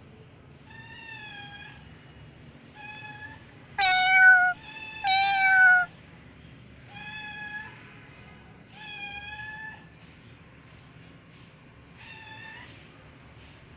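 A cat meowing repeatedly: seven high-pitched meows spaced out over about twelve seconds, the third and fourth, a few seconds in, much louder than the others.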